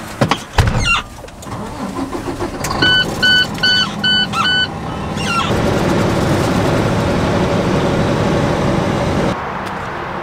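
Inside the cab of an International semi-truck: a few knocks and a thump, the engine starting, then a dash warning chime beeping five times in quick succession. Then steady engine and road noise at highway speed, which cuts off near the end.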